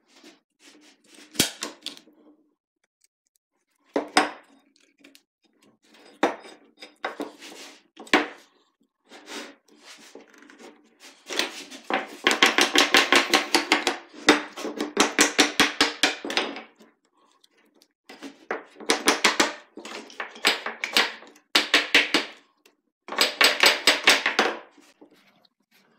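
Mallet tapping a glued oak strip down into the split hickory ax handle. There are a few single knocks at first, then runs of rapid taps; the longest run comes around the middle.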